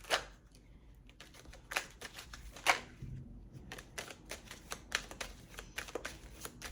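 A tarot deck being shuffled and handled by hand: a fast run of light card clicks and rustles, with a few sharper snaps of cards near the start and two to three seconds in.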